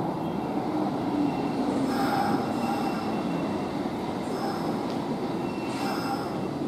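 Kintetsu electric train slowing into an underground station platform, wheels rumbling, with high-pitched squealing that comes and goes in spells from about two seconds in as it brakes.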